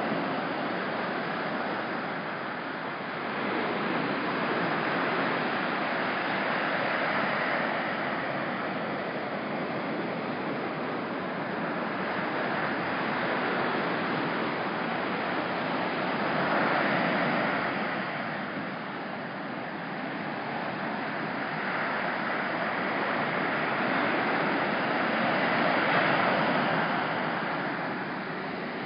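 Ocean surf breaking on the beach: a steady wash of white noise that swells louder with each set of waves every several seconds.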